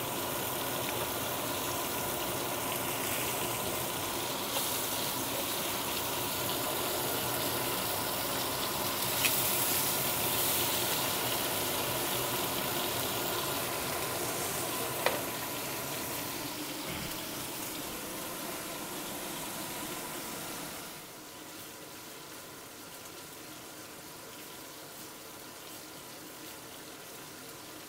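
Bone-in steaks searing in hot oil in a pan: a steady sizzle as the second side browns to a crust after the turn. There are a couple of light clicks partway through, and the sizzle drops quieter about three-quarters of the way in.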